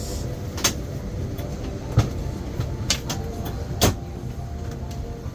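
Steady low rumble of a moving vehicle heard from inside, with several sharp clicks and knocks, the loudest about two and four seconds in.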